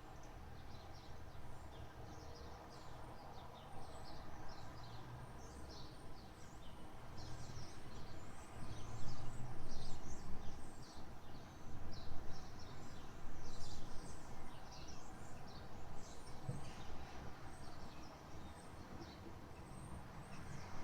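Small birds singing, many short quick chirps one after another, over a low steady rumble.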